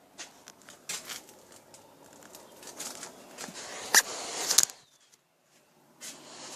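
Movement and handling noise: scattered clicks, crackles and rustling, with two sharp knocks about four seconds in. A short lull follows, then more rustling.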